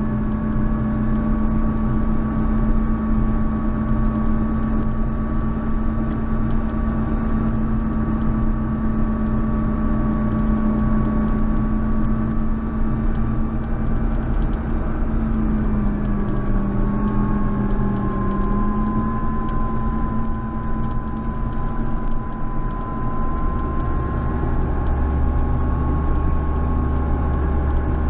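JCB Fastrac 4220 tractor's diesel engine running steadily under load while snow plowing, its note dipping briefly a little past halfway and coming back up. A deeper rumble grows stronger over the last few seconds.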